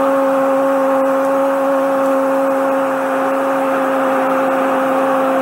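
Sportscaster's long drawn-out shout of "gol", held on one steady pitch without a break, over a stadium crowd cheering a goal.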